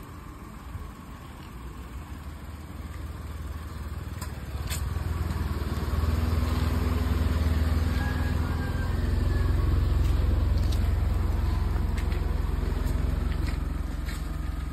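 Maruti Suzuki WagonR hatchback driving slowly up and pulling alongside, its low engine hum growing louder over the first few seconds, then running on steadily as the car stops. A few faint clicks are heard.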